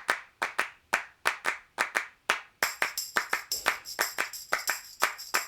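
Rhythmic handclaps opening a music track, joined about halfway through by a shimmering high percussion layer.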